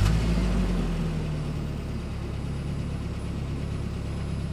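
A steady, low engine rumble like a vehicle idling, starting with a deep hit and easing a little over the first two seconds.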